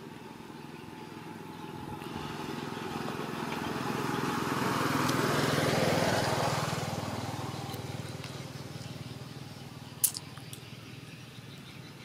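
A motor vehicle passing along the road, its engine sound swelling to a peak about six seconds in and then fading away. A single sharp click about ten seconds in.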